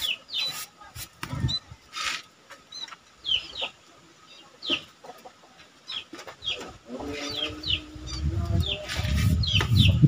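Caged leafbird (cucak ijo mini) giving short, high, down-slurred chirps, singly and in quick pairs, more often in the second half. A low rumbling hum builds over the last three seconds and is the loudest sound.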